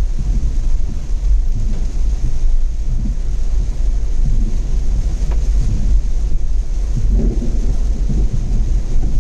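A vehicle driving along a road: a steady, loud low rumble of road noise, with wind buffeting the microphone.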